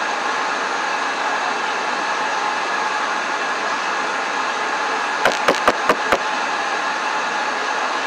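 Five quick knocks on a door, spread over about a second a little past the middle, heard from the inside of the door over a steady loud hiss.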